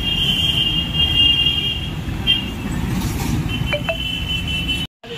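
Steady rumble of heavy city road traffic with buses, under a shrill high-pitched tone. The tone sounds for about two seconds, blips once briefly, then sounds again for about a second and a half. The sound cuts out for a moment near the end.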